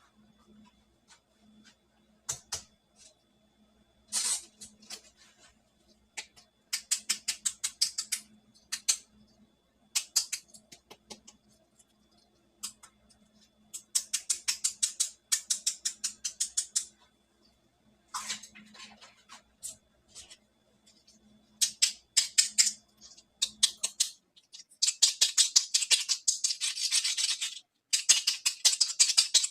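Small plastic toy pieces and their packaging being handled, in bursts of rapid clicking and crinkling that each last a second or two and come thickest near the end.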